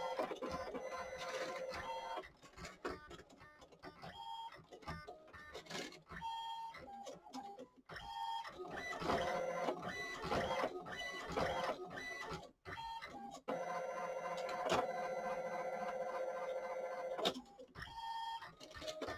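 ALPS MD-5500 thermal-transfer printer printing a decal sheet: a motor whine from the print mechanism and paper feed that stops and starts with short pauses, then runs steadily for a few seconds as the printed sheet is fed out, and stops near the end.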